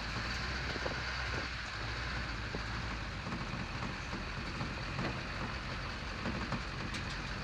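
Duramax V8 turbo-diesel engine running steadily in a 1967 Chevrolet C10 pickup, with an even hiss over a low drone.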